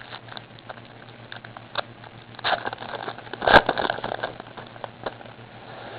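Basketball trading cards being handled and flipped through by hand: light rustling and card-on-card clicks, with a sharper snap about three and a half seconds in.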